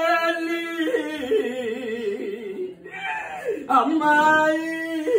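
A woman's voice singing a Tamil mourning lament (புலம்பல், oppari), wailing in long held notes that waver in pitch, with a brief break about three seconds in.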